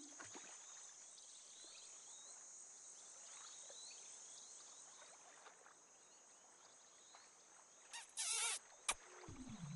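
Faint high, steady chirring background with scattered small chirps, then a short, high warbling squeak about eight seconds in and a single click just after it.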